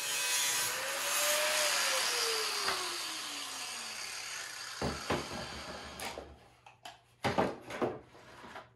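Handheld power tool cutting a hole in a car kick panel: a high whirring hiss whose motor pitch falls away after about a second and a half as the tool winds down. A few knocks and rattles follow as the panel is handled.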